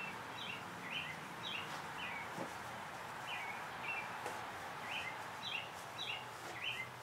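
Small bird chirping over a steady background hiss: short high notes, roughly two a second, with a brief pause a little after two seconds in.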